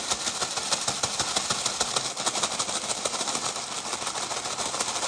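Two paper bags of McDonald's McShaker fries shaken hard to coat the fries in seasoning powder: a fast, continuous rattle and rustle of paper and fries.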